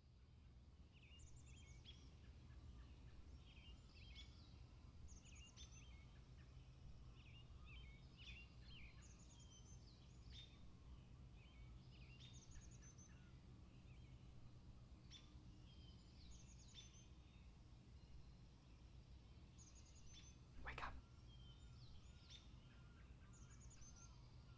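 Faint woodland birdsong: short high chirping phrases recurring every second or so over a steady low background rumble, with a single sharp click near the end.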